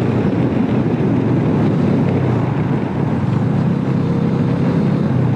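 Motorcycle running at a steady speed on the road, with wind rushing over the microphone.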